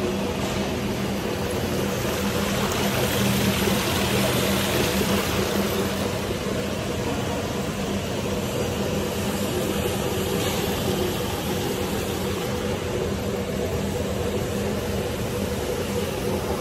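Screw-press manure dewatering machine running steadily: an even motor-and-gearbox hum with a constant rushing noise over it, as the screw presses water out of cow dung and pushes the dewatered solids out of the outlet.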